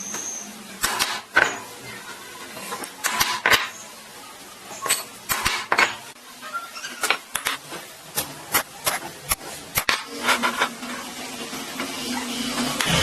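Irregular clicks, knocks and clatter of hard objects being handled, with a low steady hum joining in during the last few seconds.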